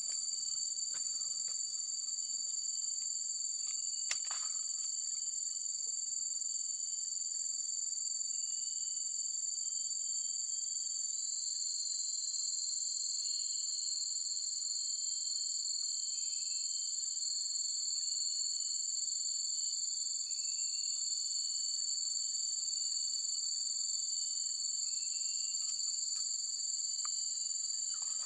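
Steady, high-pitched chorus of insects such as crickets or cicadas, continuous throughout, with short chirps repeating every second or two through the middle and a single click about four seconds in.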